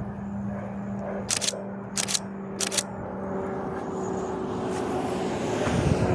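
Camera shutter firing three short bursts about two-thirds of a second apart, over a steady engine drone that grows louder near the end.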